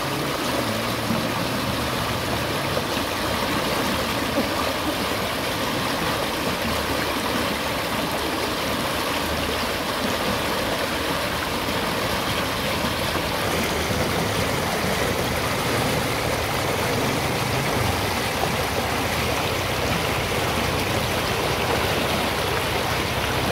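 Muddy floodwater rushing fast and churning white through a rain-swollen stream channel: a steady, unbroken rushing noise.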